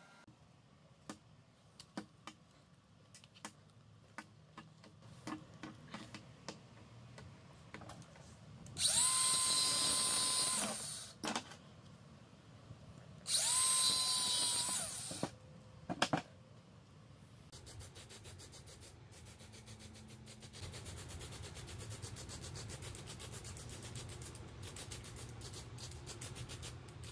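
Angle grinder cutting through a coil spring in two bursts of about two seconds each, the motor whining at a steady pitch that drops as it winds down, followed by a brief third burst. Scattered faint clicks come before, and a faint steady noise with fine rapid ticking fills the last ten seconds.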